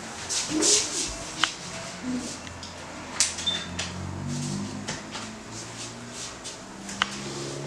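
Paper sheets rustling as they are handled and clipped to a wall hook, with a few sharp clicks.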